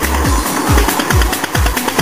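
Electronic dance music with a steady kick-drum beat, nearly three beats a second, over a deep bass note that drops out about half a second in.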